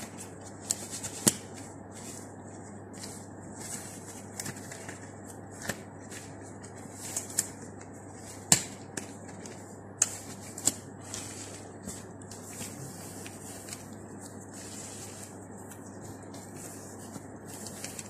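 Quiet rustling and scattered clicks of handling as disposable gloves are pulled on and a surgical face mask is fitted, with a few sharper taps, the loudest about eight and a half seconds in.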